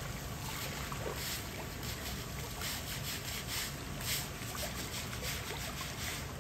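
Water running from a hose through a scrub brush onto wet rock, with the brush scrubbing in irregular strokes.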